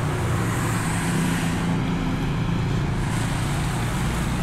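A motor vehicle engine running steadily with road and traffic noise, a continuous low hum under a broad rush.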